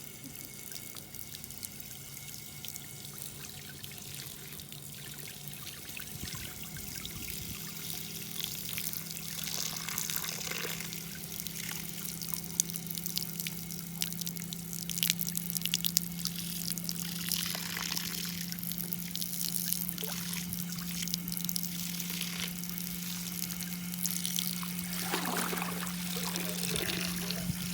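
Water pouring and trickling steadily, with a few louder splashes and a steady low hum underneath.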